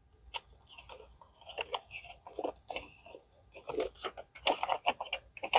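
Paper banknotes and a clear plastic binder pocket rustling and crinkling as a one-dollar bill is handled and stuffed into the pocket. The noise comes in irregular bursts and gets louder in the second half.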